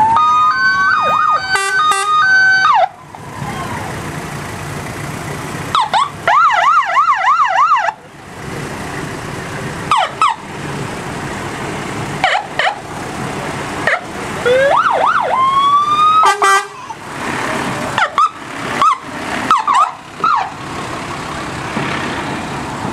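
Fire engine sirens sounding in short bursts as the trucks pass: a rising wail, a few seconds of fast yelping about six seconds in, then brief whoops and rising wails. Steady vehicle running noise fills the gaps between bursts.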